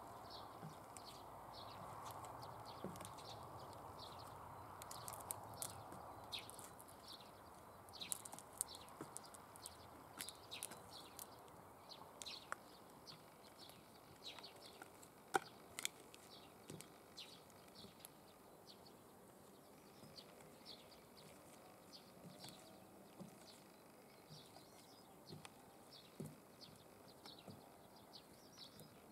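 Faint outdoor ambience of small birds chirping in many short, high calls, with a single sharp click about halfway through.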